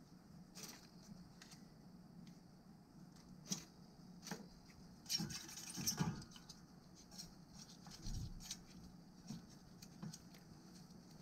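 Faint wet rubbing and light clicks of a gloved hand wiping with a cloth inside a stainless steel bowl of liquid. The handling gets briefly louder about five to six seconds in, and there is a dull thump about eight seconds in.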